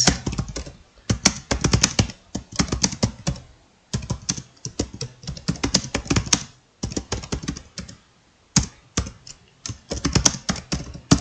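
Fast touch-typing on a laptop keyboard: rapid key clicks in runs, with short pauses about four seconds in and again around eight seconds in.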